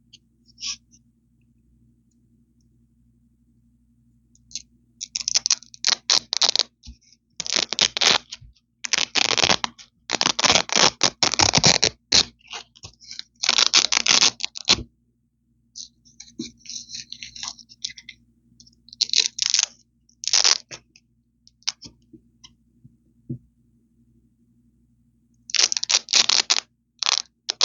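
Hook-and-loop (Velcro) fastener being ripped apart close to the microphone: a string of crisp, crackly rips, each lasting from under a second to about two seconds, beginning about four seconds in, with a few fainter rips in the middle and a pause before the last ones.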